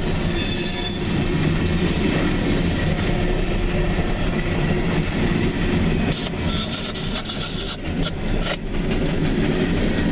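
Empty steel coal cars of a freight train rolling past: a steady rumble and rattle of wheels on the rails, with a few sharp clanks about eight seconds in.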